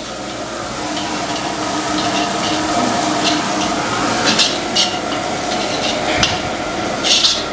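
Finely chopped onion sizzling in hot oil in a large kadhai, with a steel ladle stirring it and scraping the pan in repeated short strokes.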